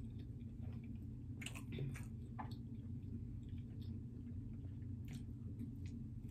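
A person chewing and biting into a slice of pepperoni pizza at close range, with wet mouth sounds and a scatter of short sharp clicks, most of them about one and a half to two and a half seconds in and another about five seconds in.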